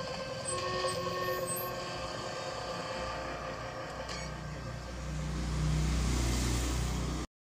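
Film audio playing from a phone's speaker: sustained tones over a low rumble that swells in the second half, then cuts off suddenly near the end.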